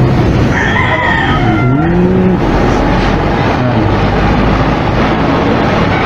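Oxy-fuel brazing torch burning with a loud, steady rushing noise as oxygen is added, turning the flame from yellow to a sharp blue brazing flame. A short gliding call or voice sounds over it about one to two seconds in.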